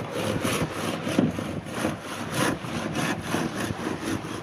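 Handsaw cutting through timber in quick, even back-and-forth strokes, about four a second.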